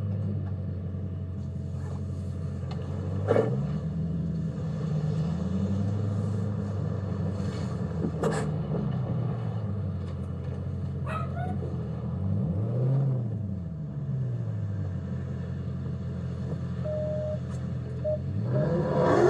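Dodge Scat Pack's 6.4-litre HEMI V8 heard from inside the car, running at low revs. The revs rise and fall several times as the car is driven around, with a few brief clicks in between.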